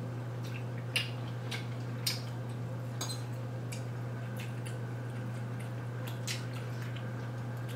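Forks clicking now and then against plates during a meal, sharp light ticks about a second apart, over a steady low hum.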